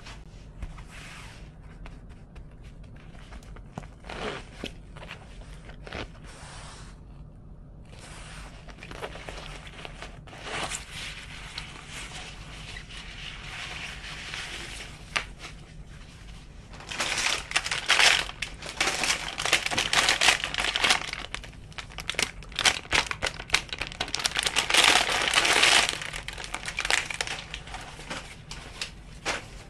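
Rustling and crinkling as a black fabric eco bag is unfolded and handled, with scattered small knocks; the handling is loudest in two long stretches in the second half.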